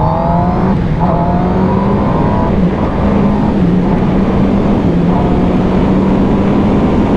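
Kawasaki Ninja ZX-10R's inline-four engine under hard acceleration. Its pitch climbs, drops back at each quick upshift, about a second in and again near two and a half seconds, then climbs again. Heavy wind rush on the microphone grows as the speed builds.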